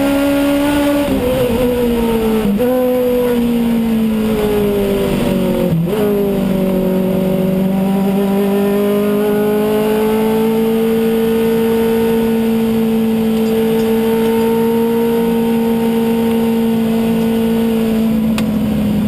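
An Aussie Racing Car's engine, heard from inside the cabin, running under load. Its note drops in pitch about a second in and again at two and a half seconds, dips sharply near six seconds, then holds a nearly steady note for most of the rest.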